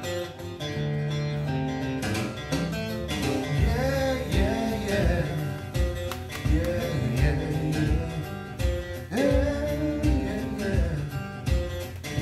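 A recorded band song: guitars over a steady beat, with a sung melody line coming in about three seconds in.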